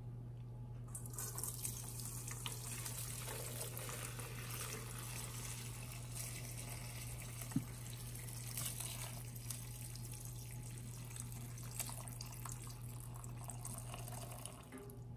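Turkey stock poured from a steel pot through a mesh strainer into a stainless steel bowl, a steady stream of liquid splashing that starts about a second in and stops near the end. A single sharp clink about halfway through.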